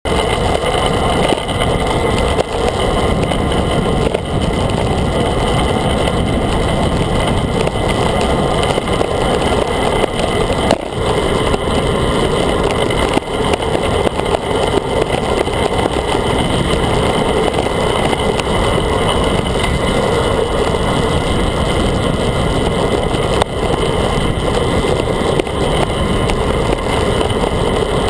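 Steady rush of wind over a handlebar-mounted action camera on a fast road-bike descent, mixed with road rumble from the tyres on asphalt.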